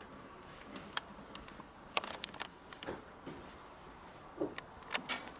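Faint scattered clicks and light rustles, a few short sharp ticks spread over several seconds against a quiet room background.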